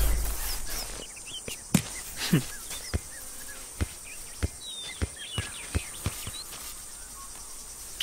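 A football being juggled: about ten dull thuds at uneven spacing, each a touch of the ball, over faint bird chirps. A vehicle's rumble fades out in the first second.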